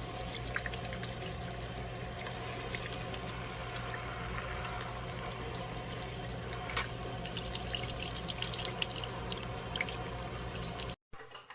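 Running water: a steady hiss with faint drips and small clicks over a low hum.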